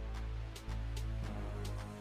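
Background music with a strong bass line and a regular beat.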